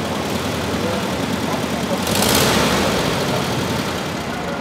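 Classic Volkswagen Beetle's air-cooled engine idling with a steady rumble. A brief burst of hissing comes about two seconds in.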